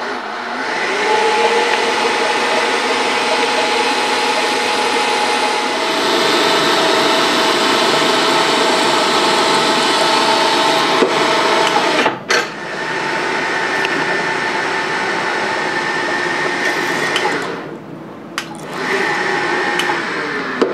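Milling machine spindle running steadily with a humming tone while a spot drill and then a twist drill cut into a small metal block held in the vise, drilling for a 10-24 tapped hole. The sound drops out briefly about twelve seconds in and again near the end, then picks up again.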